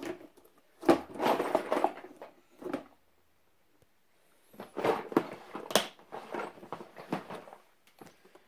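Clear plastic storage tub packed with metal fidget spinners being handled: the spinners rattle and shift and the plastic knocks, in several bursts with a short quiet gap about three seconds in.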